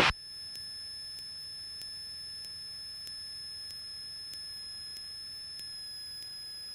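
Aircraft intercom audio fed straight through a recording cable, carrying a steady high-pitched electrical tone and faint hiss with no engine roar coming through.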